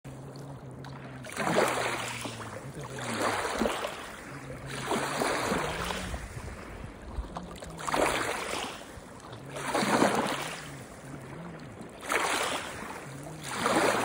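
Small lake waves washing onto a pebble shore, each wave surging in and draining back about every two seconds.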